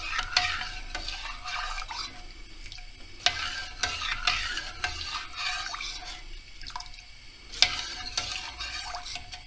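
A metal spoon stirring cooked rice and milk in a stainless steel pot, in uneven swishing, scraping strokes along the pan. The spoon clinks against the pot three times: near the start, about a third of the way in, and near the end.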